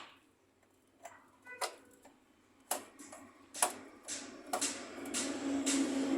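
Engine oil being poured from a plastic bottle into a Passion Pro motorcycle's oil filler: irregular clicks and glugs about a second apart, then a steadier pouring sound builds over the last couple of seconds.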